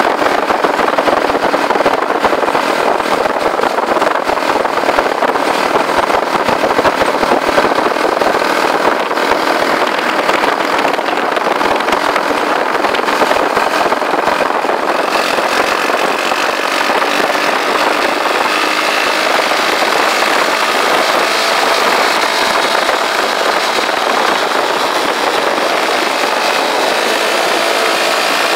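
Motorcycle engine running steadily at road speed, heard from the handlebars, mixed with a steady rush of wind and road noise.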